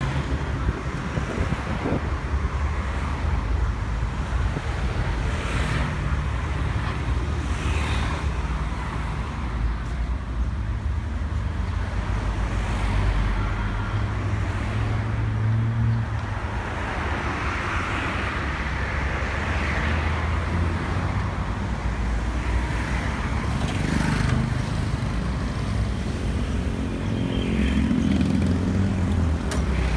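Motor vehicle running with traffic noise: a steady low engine rumble under road hiss.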